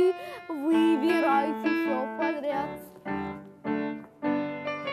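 Piano accompaniment to a stage song, playing in short phrases with brief breaks, with a voice singing over it in the first couple of seconds.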